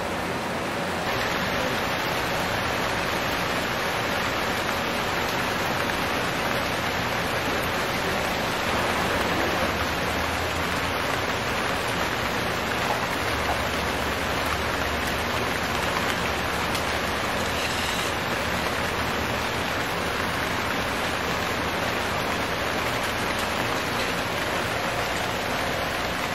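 Heavy monsoon rain falling steadily, an even hiss without a break.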